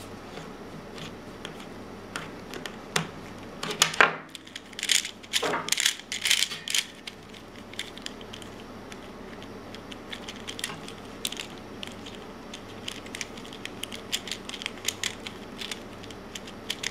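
Plastic pieces of a David's Gear Cube puzzle clicking and clattering as it is handled and worked. A run of louder clatter comes about four to seven seconds in, followed by lighter, scattered ticks.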